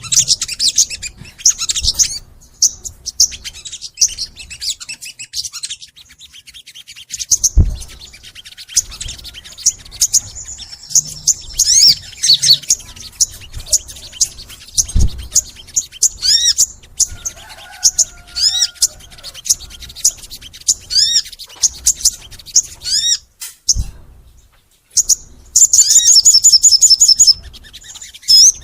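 Song of a sogon songbird: many rapid high chirps and repeated short arching whistled notes, rising to a loud fast trill near the end. A few brief low thumps are heard along the way.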